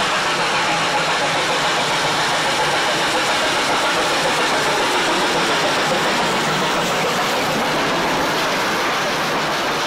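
Steam train passing close by, a steady loud rush: the locomotive working as it comes through, then its carriages rolling past on the rails.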